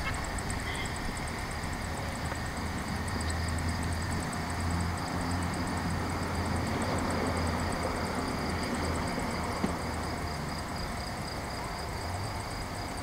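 A steady low hum, as of an engine or machine running, over an even outdoor noise. Above it, insects buzz high in a fast, even pulse.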